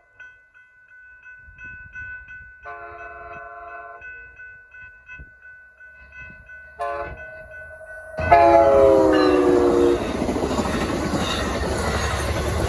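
Railroad crossing bells ringing steadily while an Amtrak San Joaquins train sounds its horn for the grade crossing: a long blast, a short one, then a long blast that drops in pitch as the train arrives. The train then passes close by with a loud rumble of wheels on rail.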